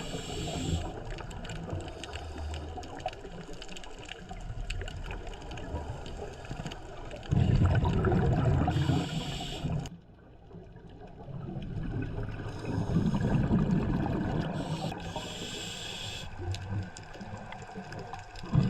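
Sea water sloshing and bubbling in uneven swells, with hissy spells of bubbles. The sound drops off suddenly about ten seconds in, then builds again.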